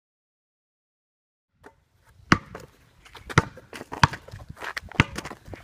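A basketball bouncing on asphalt: four sharp bounces about a second apart, starting a couple of seconds in after silence.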